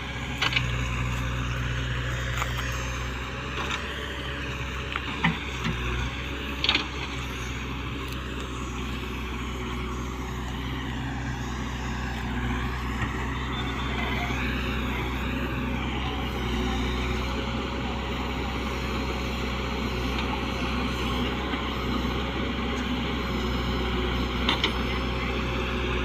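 JCB 3DX backhoe loader's diesel engine running steadily under load as the backhoe digs and loads soil into a trolley, with a few short sharp knocks.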